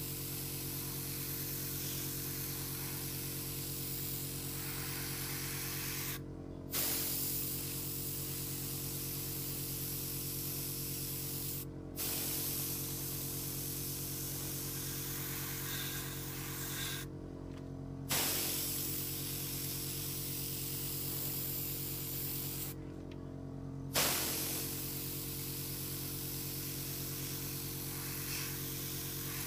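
Gravity-feed airbrush spraying paint: a steady hiss of air, stopped briefly four times as the trigger is let go, with a short louder burst each time it opens again. A steady low hum from the air compressor runs underneath.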